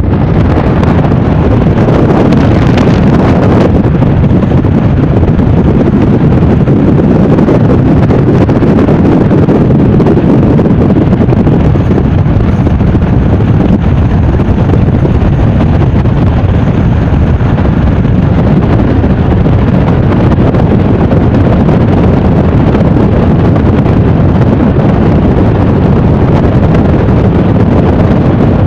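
Steady wind buffeting on a phone microphone in a vehicle moving at motorway speed, with road noise underneath, loud enough to nearly overload the recording.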